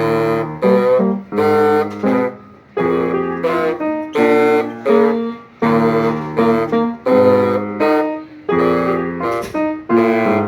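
Music: a band piece played as a string of held notes and chords, a second or so each with short breaks between them, with a piano sound prominent.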